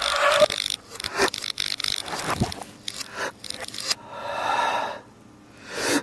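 Broken plastic Rubik's cube pieces clattering and scraping on a tiled floor, played backwards: a run of sharp clicks and scrapes, then a swelling rush of noise that drops away and rises again near the end.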